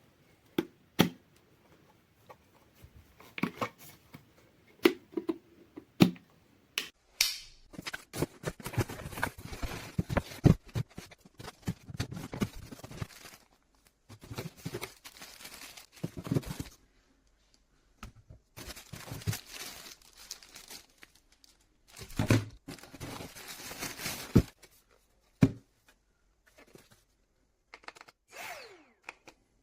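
Hand-handling noises: a scatter of sharp clicks and knocks with stretches of crackly rustling, and no motor running.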